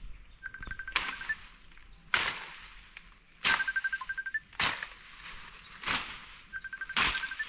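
Rhythmic swishing and rustling of dense grass and ferns being pushed through on foot, one sharp swish about every second. Three times a short run of rapid high pips ending in a higher note sounds behind it.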